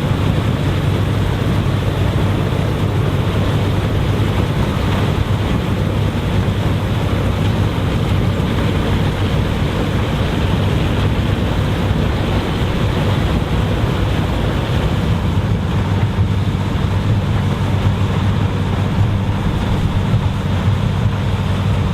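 Vintage combine harvester running steadily while harvesting corn: a continuous low engine hum under a dense mechanical rush.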